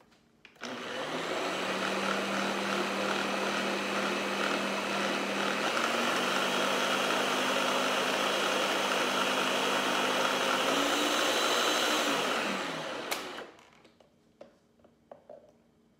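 Countertop blender running on a thick mix of mashed boiled potatoes and milk: the motor starts about half a second in, its hum steps up in pitch twice, then winds down and stops near the end, followed by a few light knocks.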